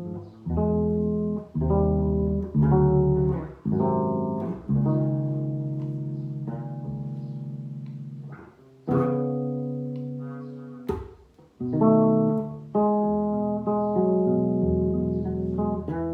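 Solo bass playing a chord-melody arrangement: plucked chords and single notes, about a dozen, unevenly spaced, each left to ring and fade. A sharp click comes about eleven seconds in.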